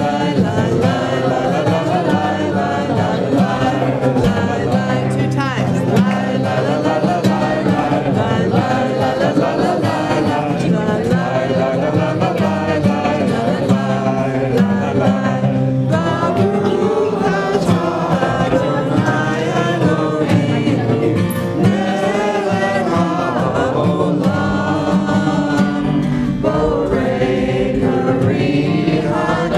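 A group of voices singing a song together to a strummed acoustic guitar.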